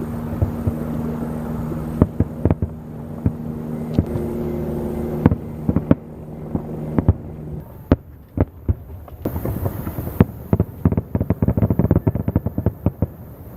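Fireworks launching and bursting in sharp, scattered bangs, ending in a rapid run of crackling reports over the last few seconds. A steady low hum sounds under the first half and stops about halfway through.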